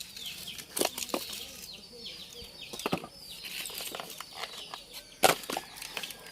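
Chicks peeping over and over in short, high calls that fall in pitch, with several sharp knocks and clicks among them, the loudest about five seconds in.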